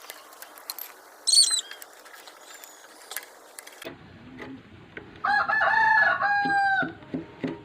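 A rooster crowing once, loud, with a falling end to the call about five seconds in. A short high chirp comes earlier, and light clicks follow the crow.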